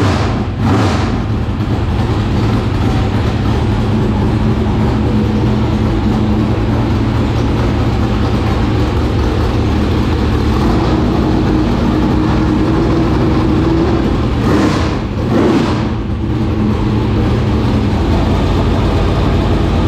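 465-cubic-inch dirt late model racing V8 running loud through open headers, after sitting unrun for three years. It is revved briefly near the start and again about fifteen seconds in.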